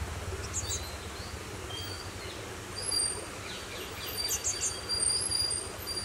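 Fledgling cinereous tit calling: a few short high chirps, then a quick run of falling notes and thin high whistles in the second half, over a steady low rumble.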